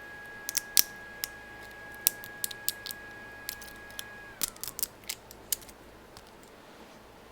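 Sharp snaps and clicks of PLA support material being broken and clipped off a fresh 3D print, a dozen or so irregular cracks over the first five seconds. A steady high whine underneath slides down in pitch and stops partway through.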